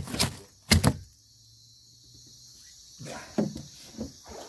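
A few sharp knocks and thumps, two close together near the start and more in the last second and a half, from handling around a fish box of freshly caught fish aboard a small boat. A steady high chirring of night insects runs beneath.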